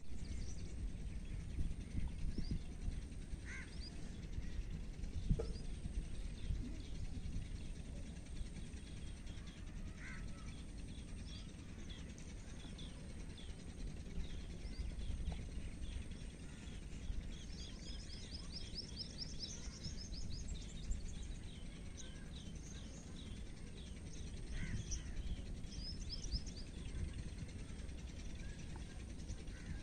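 Rural outdoor ambience: small birds chirping on and off, with a fast run of chirps in the middle and a few lower calls, over a steady low rumbling noise.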